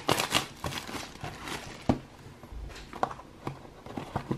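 A cardboard trading-card box handled by hand: the packaging rustles and crinkles, with a sharp tap about two seconds in and another a second later.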